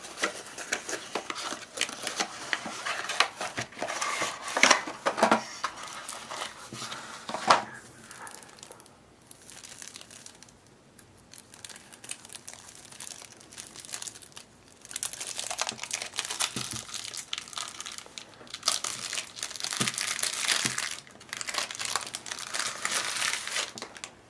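The packaging of a trading-card intro pack crinkling and tearing as it is opened by hand: the cardboard box and its insert, then the deck's wrapper. The sound comes in bursts, eases off in the middle, and picks up again as a longer spell of crinkling near the end.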